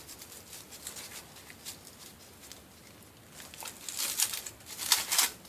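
Plastic packaging crinkling and rustling as it is handled, faint at first and growing louder and busier after about three and a half seconds.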